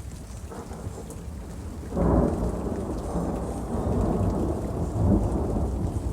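Thunder during a summer storm: a faint rumble, then a loud thunderclap about two seconds in that rolls on in surges, with rain falling throughout.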